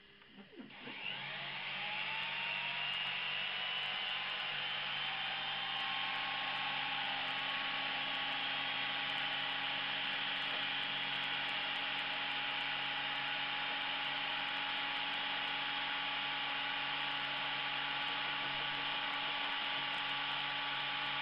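Spindle motor of a home-built CNC mill starting up about a second in with a rising whine, then running with a steady high whine as its cutter works into a white block.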